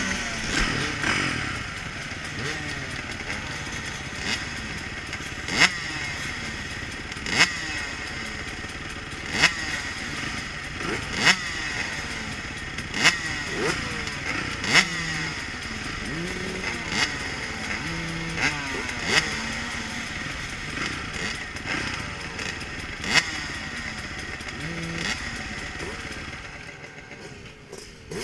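KTM 300 XC-W two-stroke dirt bike engine revving up and down, with sharp knocks about every two seconds. It quietens near the end.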